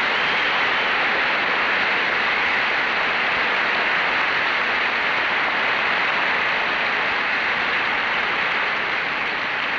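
Large audience applauding steadily, the clapping beginning to die away near the end.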